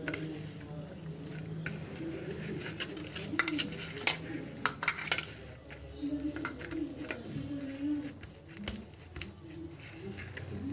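Hand kneading and pressing mashed potato filling against a stainless steel plate: soft squishing and scraping with scattered sharp clicks and clinks on the steel, a cluster of them about midway.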